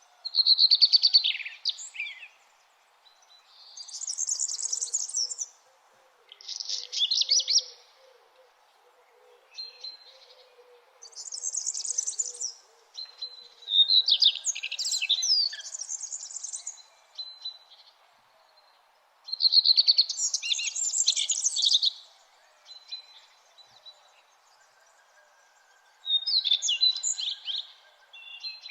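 Songbirds singing in the dawn chorus: short, high, chirping song phrases repeated every few seconds with pauses between them, over a faint steady background hum.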